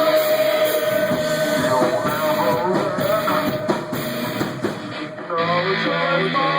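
Rock band playing live: electric guitar and drum kit, with a long note held through most of the passage and a brief drop in loudness about five seconds in.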